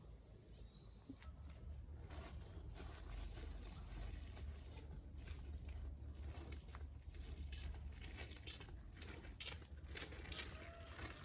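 Faint, steady, high-pitched insect chirring, with scattered footsteps that become more frequent in the second half.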